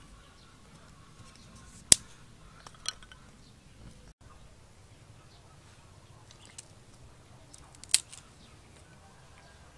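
Sharp clicks and snaps as dry twigs and kindling are handled and lit to start a small fire. Two loud clicks fall about six seconds apart, with a few fainter ones between them, over a low, quiet background.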